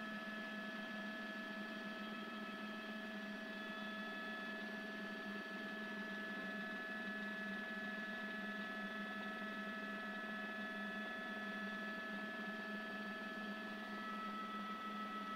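Steady low-level hum with several thin steady tones above it, heard through the live news broadcast feed. One of the tones drops out about four seconds in and a new one joins near the end.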